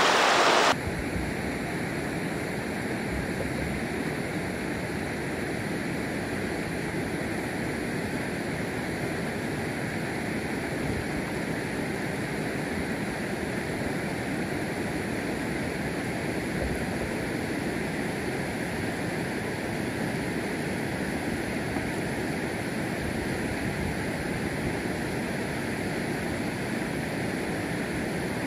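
Shallow stream water rushing over rocks for under a second, then cutting to a steady, quieter, even rush of riverside outdoor ambience, wind and river flow, with no distinct knocks.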